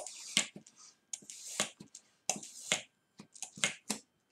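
Latex modelling balloon with a pinhole leak being handled: a run of sharp rubbery snaps and squeaks, with a hiss of air in the first second or so.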